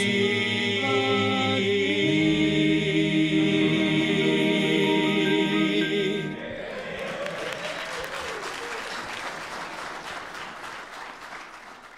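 Men's vocal quartet holding the final chord of a gospel song, which cuts off about six seconds in. Congregation applause follows and fades out near the end.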